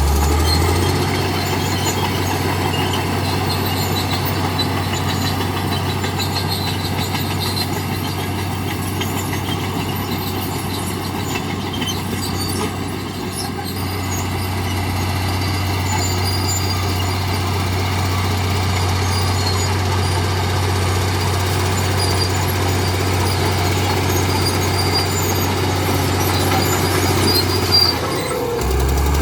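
Heavy earthmoving machinery at work: the diesel engine of a machine such as a crawler bulldozer running steadily, with a low hum and noise from the working machine over it.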